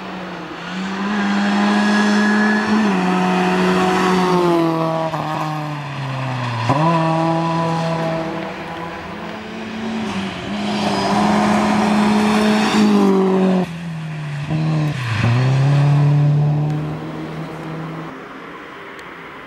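Rally car engine at full throttle on a gravel stage, revs climbing and holding, then dropping sharply twice as the driver lifts and shifts. It grows loud as the car comes through the bend, then fades as it drives off.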